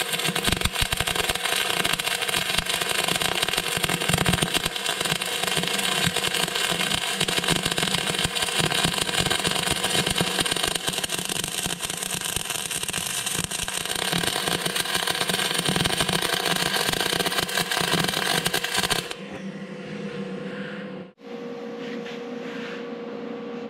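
Wire-feed welding arc from a Migmax 215 running .035 dual-shield (gas-shielded flux-core) wire on steel: a steady, dense crackle that stops about 19 seconds in, leaving a quieter steady hum.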